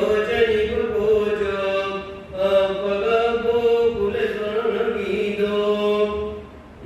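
A man's solo voice chanting Buddhist verses in Pali in long held notes, pausing briefly for breath about two seconds in and again near the end.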